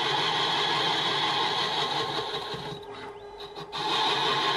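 Homemade small CNC lathe turning a 30 mm cast iron bar at 340 rpm: the tool takes a 1.5 mm deep cut with steady cutting noise as chips break off. The noise falls away for about a second a little past the middle, then comes back.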